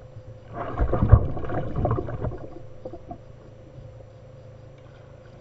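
Water splashing and slapping against the plastic hull of a fishing kayak: a rough burst of about two seconds that starts about half a second in and dies away after about three seconds.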